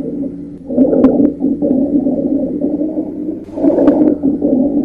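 Rhonchi in an auscultation recording of the chest: a low-pitched, snoring continuous lung sound in long stretches, with short breaks about half a second in and again about three and a half seconds in. It is a sign of obstruction in the large airways.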